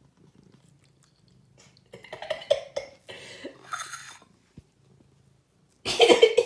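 A person's breathy, wordless vocal sounds starting about two seconds in, then a loud wordless vocal outburst near the end.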